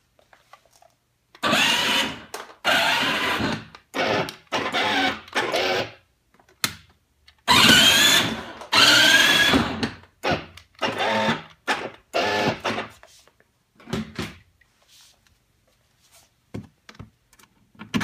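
Children's 12-volt electric ride-on car's drive motors and gearboxes whirring in repeated short bursts, starting and stopping as the car is driven by remote control. In a couple of the bursts the whine rises in pitch as the motors speed up.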